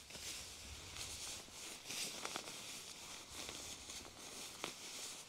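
Rustling and handling noises with a few sharp clicks, from a camping stove being set up for breakfast. The rustle swells and fades unevenly, with clicks a little past two seconds in and again near the end.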